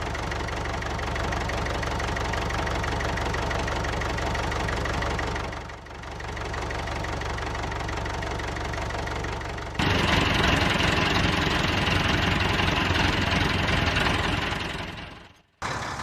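An engine running steadily at idle, with a rough knocking beat; it dips briefly about six seconds in and turns louder and brighter almost ten seconds in.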